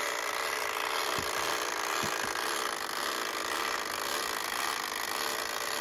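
Perfection game's wind-up timer running with a steady mechanical buzz as it counts down toward the pop-up, with two soft knocks about a second and two seconds in.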